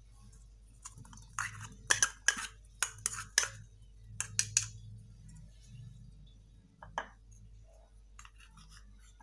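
A white bowl clinking and knocking against the rim of a glass mixing bowl as boiled sweet corn kernels are tipped and tapped out into it: a quick run of sharp clinks in the first half, then a few scattered ones near the end.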